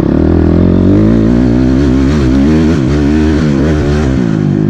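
Single-cylinder four-stroke engine of a 2006 Honda CRF250R motocross bike being ridden on a trail, its revs rising and falling again and again as the throttle is worked.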